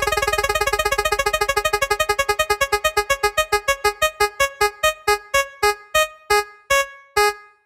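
Spin-the-wheel sound effect: one synthesized keyboard-like note repeated very fast, the repeats slowing steadily to about two a second as the wheel winds down, stopping just before the end.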